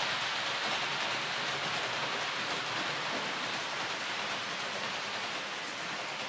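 H0-scale model train running on the layout's track: a steady rolling hiss of small metal wheels on rail and motor.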